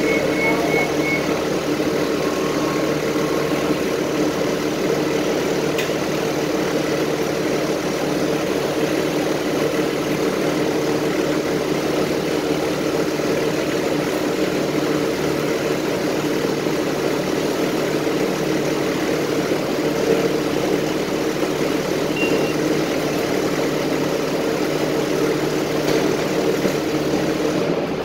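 City transit bus engine idling steadily, heard from inside the passenger cabin as an even, unchanging hum.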